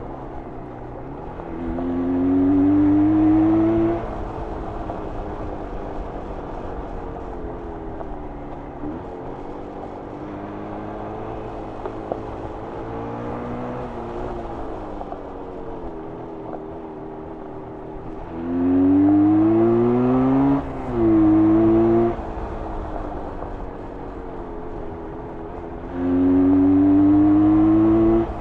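1994 Jawa 350 two-stroke twin motorcycle engine, ridden offroad. It runs at light throttle, opens up hard with a rising pitch about two seconds in, again around eighteen seconds, where there is a brief drop like a gear change before it pulls again, and once more near the end.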